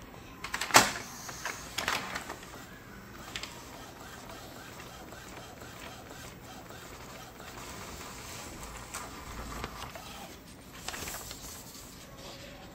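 Epson L120 inkjet printer running a test print with its cover off: a few sharp mechanical clacks in the first few seconds, then steady running noise from the paper feed and print carriage, with louder stretches later on. It is feeding and printing normally after its stuck paper pickup roller shaft was freed.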